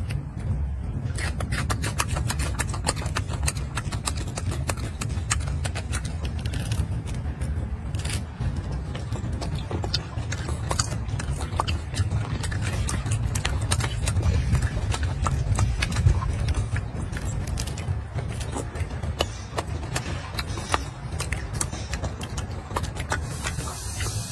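Golden snub-nosed monkey eating an orange up close: irregular crackling clicks of the peel tearing and the fruit being chewed, over a steady low rumble.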